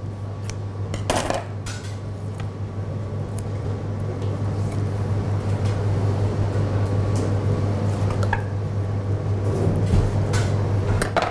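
Kitchen scissors and a filleting knife working through a large cod on a cutting board: a few sharp metal clicks and clinks, the loudest about a second in, over a steady low hum.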